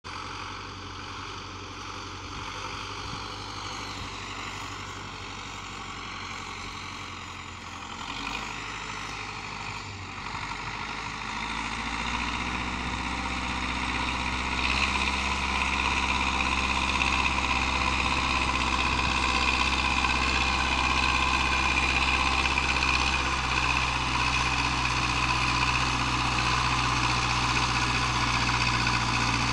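Zetor 6045 tractor's four-cylinder diesel engine running steadily under load as it pulls a Bauer 2200-litre slurry tanker up a steep slope. It grows louder from about twelve seconds in as the tractor comes closer.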